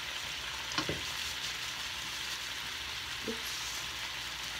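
Shell-on shrimp sizzling steadily in a frying pan with soy sauce. Two brief knocks break in, about a second in and again past three seconds.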